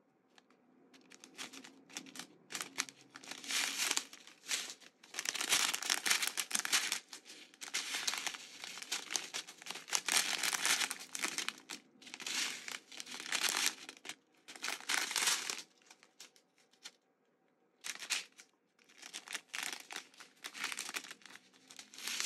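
Strips of small clear plastic zip-top bags of diamond-painting drills crinkling as they are handled, in repeated bursts with short pauses and a quiet stretch of about two seconds around two-thirds through.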